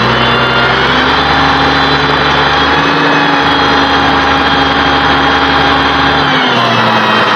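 An engine revs up about a second in and holds a steady higher speed, then drops back near the end.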